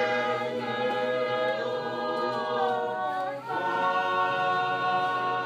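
A group of voices singing a capella, holding long chords, with a change to a new chord about three seconds in.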